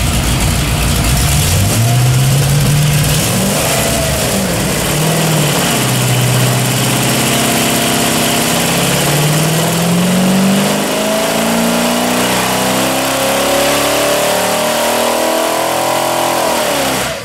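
Supercharged 284-cubic-inch flathead Ford V8 making a full-throttle pull on an engine dyno, from about 2,000 toward 5,000 RPM. After a short rev and settle, the engine note climbs steadily in pitch for about ten seconds, then drops off sharply near the end as the throttle closes.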